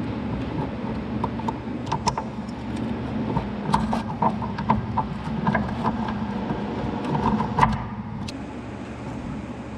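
Light metal clicks and clinks as pliers work the pins of a forklift's control-lever linkage loose, over a steady low hum. The clinking stops about eight seconds in.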